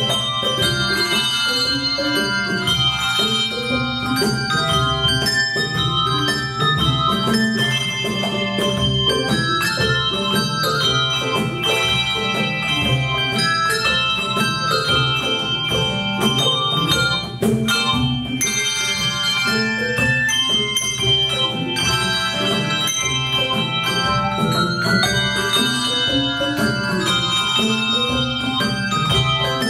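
Handbell choir playing a piece: many tuned handbells ringing in overlapping chords, with lower bells sounding under the higher ones, without a break.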